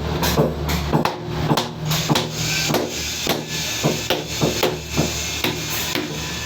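Repeated sharp hammer knocks, about two a second and somewhat unevenly spaced, over background music with sustained low notes.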